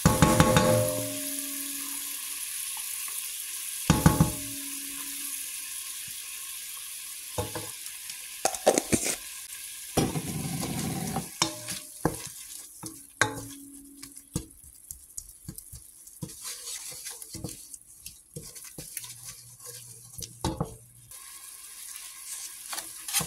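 Onions, green peppers and garlic sizzling in browned butter in a stainless steel pot while a wooden spoon stirs them, knocking against the pot several times. The sizzle is strongest through the first half and thins out after about twelve seconds.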